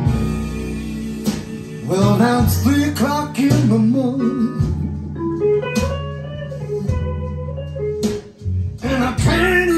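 Blues recording played back over Chario Hiper 2000 loudspeakers driven by an Arcam SA30 amplifier. In this stretch, between sung lines, a guitar plays over a steady bass line with wavering, sliding notes.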